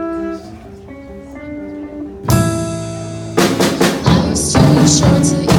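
Song: a quiet intro of picked notes, then about two seconds in the full band comes in loud with a ringing chord, and drums start a steady beat about a second later.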